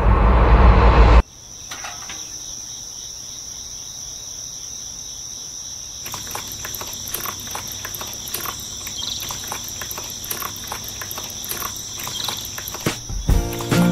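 A loud sound cuts off abruptly about a second in, leaving insects chirping in a steady, high, continuous trill. Scattered light clicks join in over the second half.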